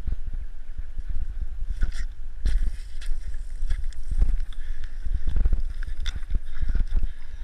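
Wind buffeting on a body-worn action camera's microphone, with irregular knocks and rustles as the wearer moves through grass and scrub.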